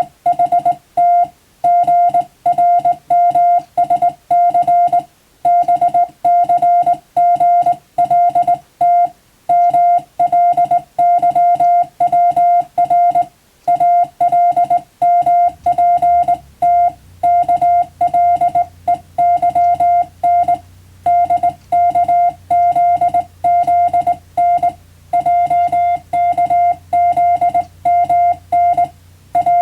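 Morse code (CW) practice tone: a single steady beep switched on and off in the short and long elements of Morse characters, with short gaps between letters and longer ones between words.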